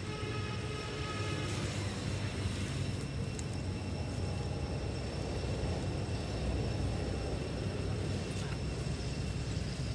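Steady low rumble of road traffic, with a thin, steady high-pitched drone over it. A brief pitched whine sounds in the first second and a half.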